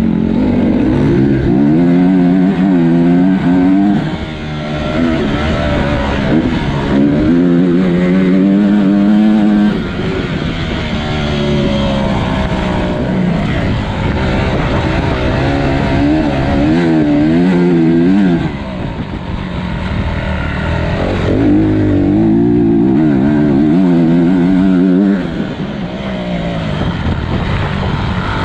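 Dirt bike engine heard on board, revving hard with its pitch climbing and falling as the rider works the throttle and gears, and easing off briefly four times before pulling again.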